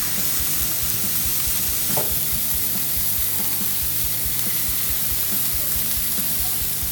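Pieces of flat iron steak sizzling on a hot flat-top griddle as they brown, a steady frying hiss with one small click about two seconds in.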